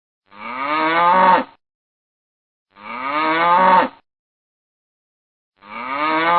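Cow mooing three times, each moo about a second long with a slightly rising pitch, and about two and a half seconds apart with silence between. The three moos look the same, as if one recorded moo is being repeated.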